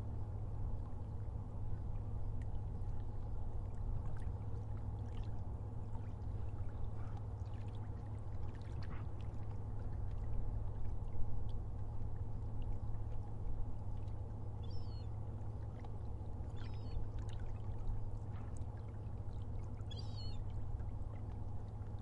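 Sea water sloshing and splashing over a steady low hum, with three short, high, squeaky calls in the last third.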